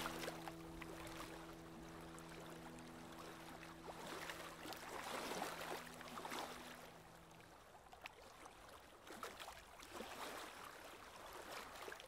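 Faint sustained music chord, a few held notes that stop about seven and a half seconds in. Under it, a faint watery swishing with light clicks, strongest around five seconds in.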